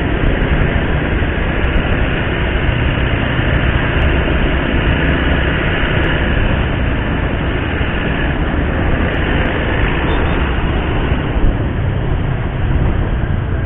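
Steady road noise of a motorcycle ride: wind rushing on the microphone over a low engine and traffic rumble.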